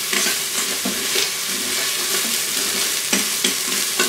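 Ginger, garlic and sesame seeds sizzling in hot sesame oil in the stainless inner pot of an Instant Pot on sauté, stirred with a utensil that scrapes and clinks against the pot several times.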